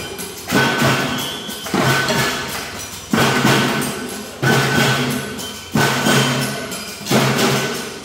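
Makeshift tin band's homemade percussion playing a cumbia rhythm, a strong accent about every 1.3 seconds with a ringing metallic tone in each bar.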